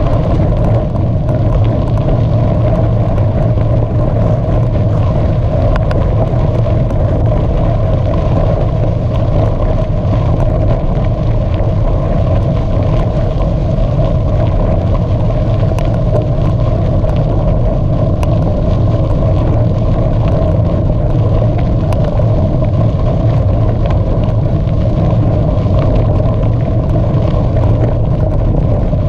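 Steady, loud rumble of riding a bicycle: wind on the microphone and tyre noise, with scattered faint ticks.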